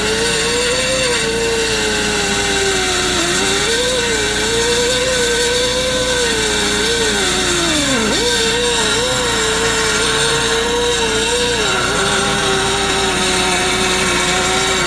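High-speed rotary tool with a cutting bit grinding into a broken steel bolt in an exhaust. It keeps up a steady whine whose pitch sags each time the bit bites, dipping deepest about eight seconds in.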